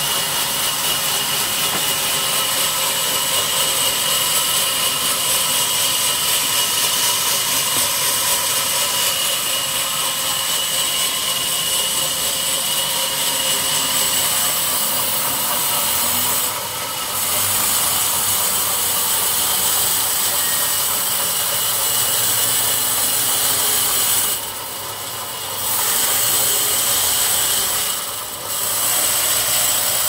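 Sawmill band saw ripping a fresh wattle log lengthwise: a loud, steady whine and rasp of the blade cutting through the wood. The cutting noise eases briefly three times, twice near the end.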